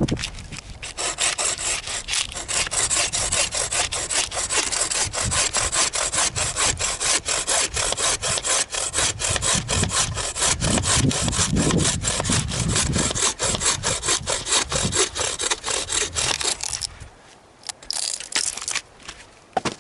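Hand saw cutting firewood: a steady run of back-and-forth strokes through the wood that stops about seventeen seconds in, followed by a few last scattered strokes.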